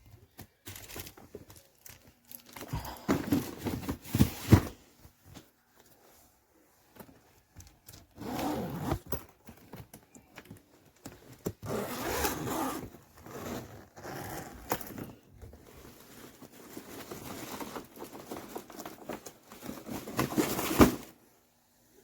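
Handling noise from a hardshell suitcase being worked by hand: irregular rustling and scraping in several bursts of a second or two, with a few sharp clacks.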